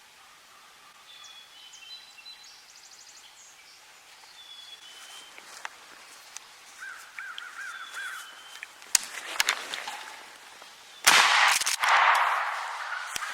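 Crows cawing and songbirds chirping in spring woods, then near the end a single sudden, very loud shotgun blast that echoes and dies away slowly: the shot that kills the turkey gobbler.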